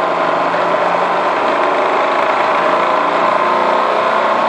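Milling machine motor and spindle running steadily at speed, spinning a rebuilt speedometer's drive, with a dense mechanical whir holding several steady tones.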